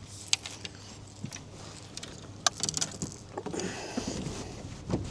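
Scattered clicks and light rattles of gear being handled aboard a small fishing boat, over a steady low hum.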